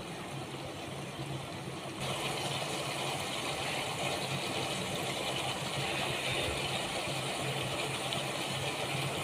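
Chicken korma simmering in oil-rich masala gravy in a wok, a steady bubbling sizzle over a low hum; the sizzle gets louder about two seconds in.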